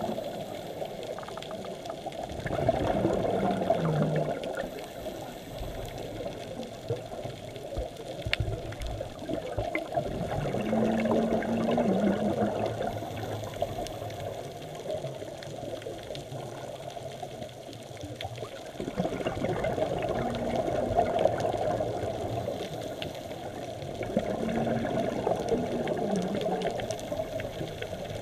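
Scuba diver's exhaled air bubbling out of the regulator, heard underwater through the camera housing. It comes in surges every several seconds, following the diver's breathing, with faint clicks in between.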